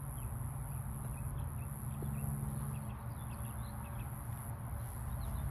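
Small birds chirping, with a quick trill near the end, over a steady low rumble and a high hiss.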